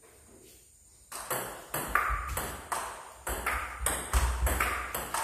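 Table tennis ball being hit back and forth with paddles and bouncing on the table in a quick rally, starting about a second in. It gives sharp clicks about three a second, some with a short ringing ping.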